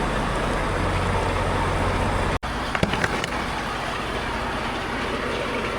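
Diesel truck engine idling with a steady low rumble, with a few sharp clicks about three seconds in.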